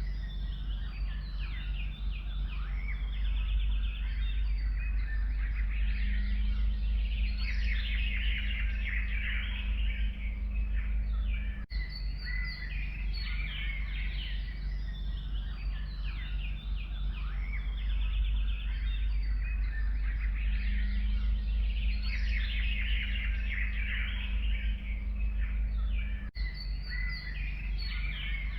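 A chorus of many forest songbirds singing and chirping at once, dense and overlapping, over a steady low rumble. Near 12 s and again near 26 s the sound drops out for an instant, as the same passage loops.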